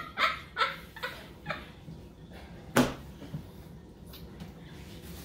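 A woman laughing hard in a few short breathy bursts that fade out over the first second and a half, then a single sharp knock a little before the middle.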